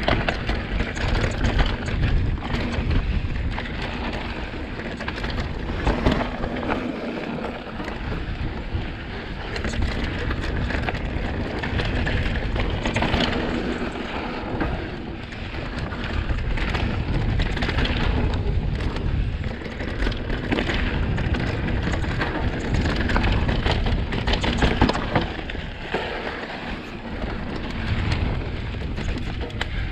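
Mountain bike ride noise from a 2020 Vitus Sommet CRS descending a loose dirt trail: steady wind rumble on the microphone, tyres rolling over gravel and dirt, and frequent clicks and rattles from the bike over rough ground.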